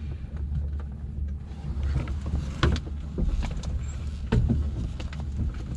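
Clicks and knocks of cockpit controls being handled in a parked Robinson R22 helicopter, with the engine off, as the cyclic and collective friction is released. A low steady rumble runs underneath.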